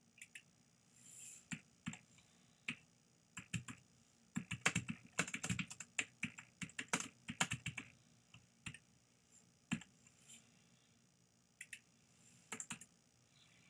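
Typing on a computer keyboard: scattered key clicks at first, a quick run of keystrokes in the middle, then a few more taps.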